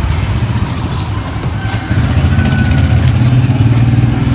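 Motorcycle tricycle's engine running, a low steady hum that grows louder about two seconds in.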